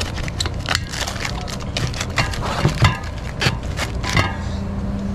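Clear plastic wrapping around butane gas canisters crinkling as it is handled: a quick, irregular run of crackles and sharp clicks over a steady low hum.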